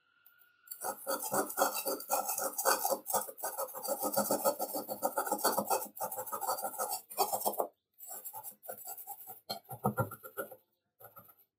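Screwdriver scraping and chipping dried cement off a rusty masonry trowel blade in rapid, scratchy strokes. The strokes run steadily for several seconds, then come in shorter bursts near the end.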